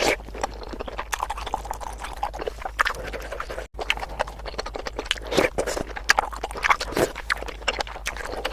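Close-miked chewing of bakso meatballs: a dense run of wet mouth clicks and smacks, with a brief break in the sound a little over a third of the way in.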